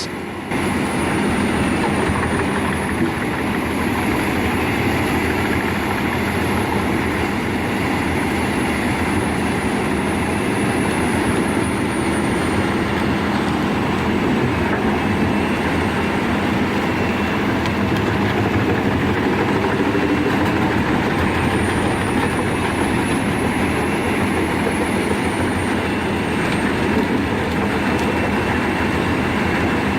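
Large forestry wood chipper running steadily while chipping wood, a dense continuous machine noise with a steady low hum. A faint high whine wavers over it, fading out about midway and returning later.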